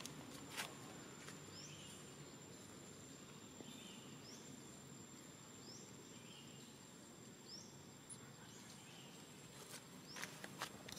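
Quiet outdoor ambience: a steady high whine, with a short rising bird chirp repeated several times. A few light clicks and rustles come near the start and again near the end, fitting macaques moving over dry leaves.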